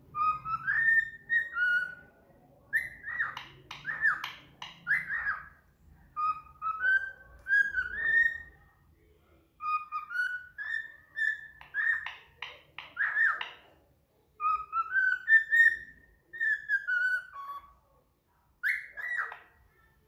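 Cockatiel whistling a tune in repeated phrases of rising whistled notes, with quick runs of short chirps mixed in and brief pauses between phrases.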